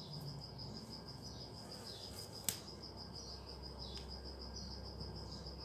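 A cricket chirring steadily as a thin, high, rapidly pulsing trill, with one sharp click about two and a half seconds in.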